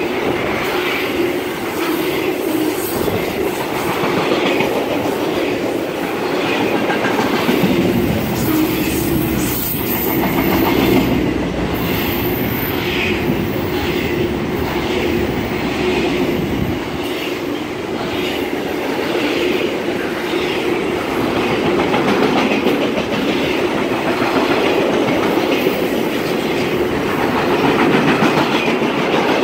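Intermodal freight train passing close by, its trailer-on-flatcar and double-stack cars rolling with a steady rumble and rhythmic wheel clacking.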